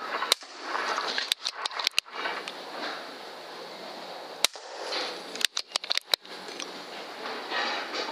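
A run of sharp clicks over a steady hiss. There is a single click just after the start, a quick cluster of about five around a second and a half in, another single click near the middle, and a second cluster of about five clicks around six seconds in.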